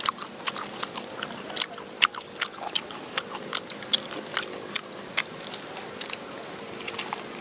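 Cooked softshell turtle being torn apart by hand on a banana leaf: irregular wet clicks and crackles of meat, cartilage and soft shell coming apart, two or three a second.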